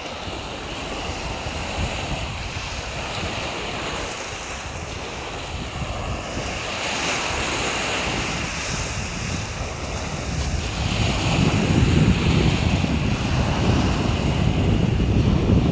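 Small sea waves breaking and washing up a sandy beach, heard as steady surf. Wind rumbles on the microphone throughout and grows heavier in the last few seconds.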